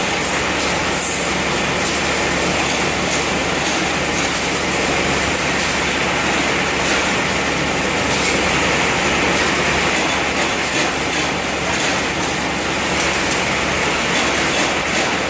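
Spot-welding machine for iron and stainless wire running: a loud, steady mechanical rumble with a low hum and irregular light metallic clinks.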